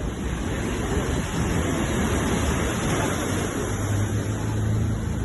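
Sea waves washing on the shore in a steady rush, with a low steady hum coming in about four seconds in.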